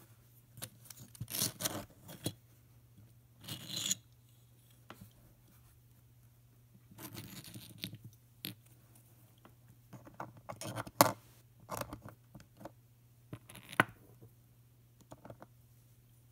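3D-printed plastic puzzle pieces and lattice boxes being handled: short scrapes and light clicks in irregular bursts as pieces are slid out of the box and set down, with one sharp click about two-thirds of the way through.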